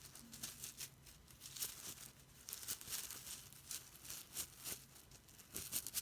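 Bean bag fidget toy being squeezed and kneaded in the hands, its filling giving faint, irregular crinkling rustles.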